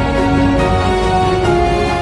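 Instrumental music: held notes that shift to new pitches twice, over a full, steady low end.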